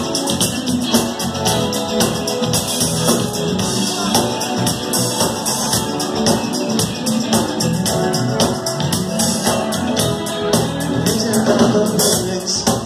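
Live band playing a rock song, with guitar over a drum kit beating steadily.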